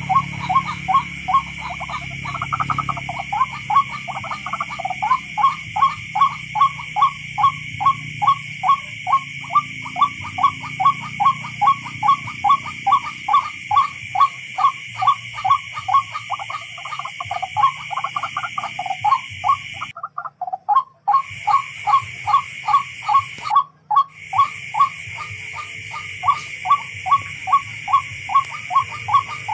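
Tikling, a Philippine rail, calling: a long, even run of short repeated notes at about three a second, breaking off briefly twice.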